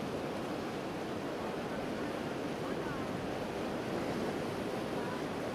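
Steady rush of floodwater running over the road, with faint voices from the crowd in the background.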